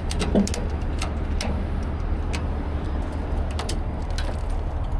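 A red ratchet strap being pulled around the burned metal of a dump truck cab: scattered sharp clicks and rattles, with one louder knock about a third of a second in, over a steady low rumble.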